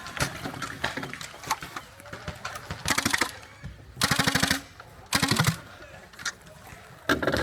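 HPA-powered Nerf blaster firing in rapid full-auto bursts: four short bursts of about half a second each, each a fast even rattle of shots.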